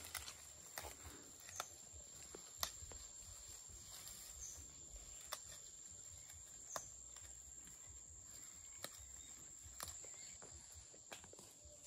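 Quiet rural outdoor background with irregular small clicks and snaps about once a second or so, a faint steady high whine, and a few short faint high chirps.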